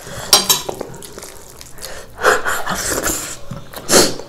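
Close-up wet eating sounds: mouths smacking and chewing on rice and curry, with a few short, sharper smacks, the loudest near the end.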